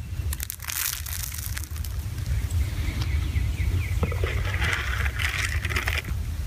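Wind buffeting the microphone with a steady low rumble. Shortly after the start, a scatter of light clicks and rattles as a thrown handful of shelled corn kernels lands, then a crinkly rustling from about four to six seconds in.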